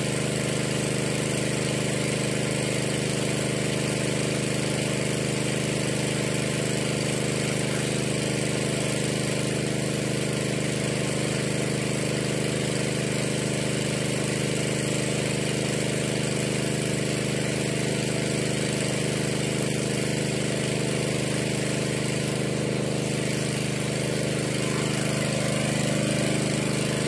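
Small engine running steadily at constant speed, driving the pump that pushes water down a bore well to flush out the mud.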